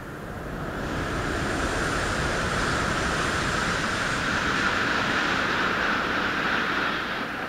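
A train passing on a nearby track: steady rolling and rushing noise that builds about a second in and fades away near the end.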